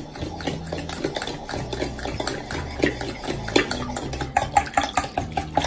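Eggs, sugar, honey, milk and oil being beaten together in a bowl, the utensil ticking quickly and repeatedly against the bowl, faster and more regular near the end. A steady low hum runs underneath.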